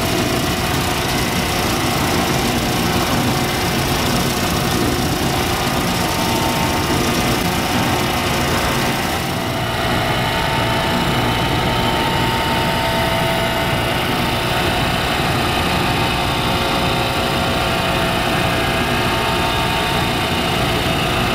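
Electric motor of a homemade lapidary polishing machine running steadily, spinning its 3-inch wet sanding drum. About nine seconds in, the hissing top of the sound drops away while the motor hum goes on.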